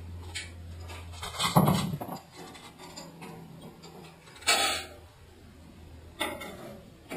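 Scattered metal clanks and knocks as bolts are fitted to a four-post lift's steel ramp, the loudest about one and a half and four and a half seconds in. A low steady hum stops about two seconds in.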